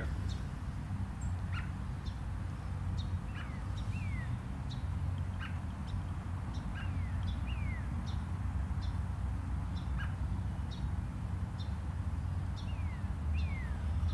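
Small birds calling: repeated short chirps and quick falling whistles scattered throughout, over a steady low rumble.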